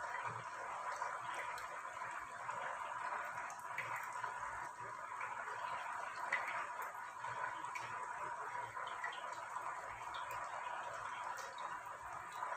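Anarsa deep-frying in hot oil on a low flame: a steady soft sizzle with small scattered crackles, as hot oil is spooned over its top.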